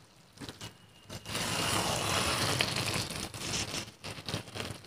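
A spatula stirring wheat-flour noodles in a kadhai. An even, noisy hiss from about a second in to about three seconds, then lighter, broken noises near the end.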